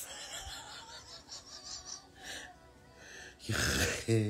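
A woman gasping for breath in wheezing laughter: faint breaths, then a loud rasping inhale about three and a half seconds in, and a voiced cry starting near the end.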